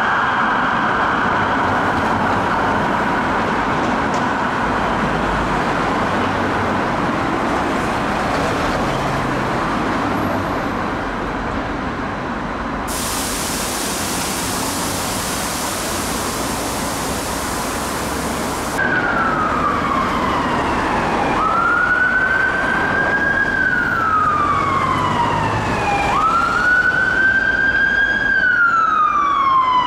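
Street traffic with a faint siren, then, from about two-thirds in, an ambulance siren wailing in slow rising and falling sweeps that grow louder, turning to quicker sweeps near the end. The wailing siren is a London Ambulance Service HART Mercedes Sprinter's.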